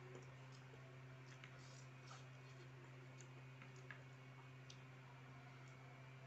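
Faint scattered clicks of a metal fork against a bowl as fried instant noodles are stirred and lifted, over a steady low hum.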